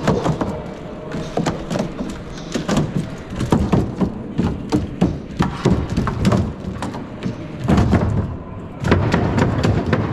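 A quadruped robot's feet thudding and tapping irregularly as it walks over the competition course, with a steady background hum of the hall. The knocks come several to a second, loudest around the middle and near the end.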